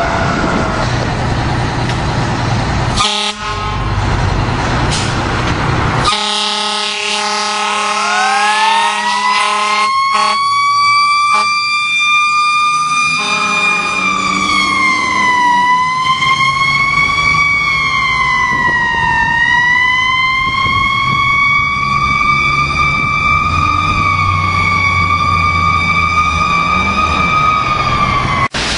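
Fire trucks responding with sirens and an air horn. A siren falls in pitch at first, and a long steady air-horn blast sounds from about six seconds in. Around eight seconds in, a siren winds up in pitch and then rises and falls slowly over a low engine rumble until it cuts off just before the end.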